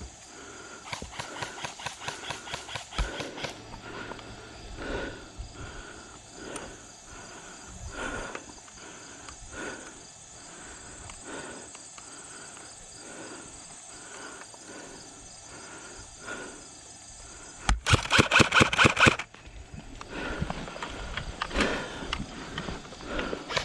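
Airsoft gun firing a rapid full-auto burst lasting about a second and a half near the end; it is the loudest thing heard. A quieter rapid rattle of airsoft fire comes about a second in, and steady footsteps through brush run between.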